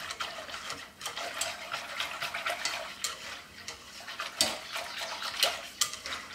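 Whisk stirring milk and flour in a stainless steel saucepan: the liquid sloshes, with repeated light clicks and scrapes of the whisk against the pan. The white sauce is heating and has not yet come to the boil.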